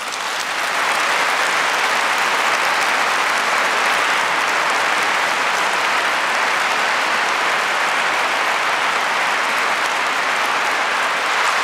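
Large audience applauding, swelling up within the first second and then holding steady.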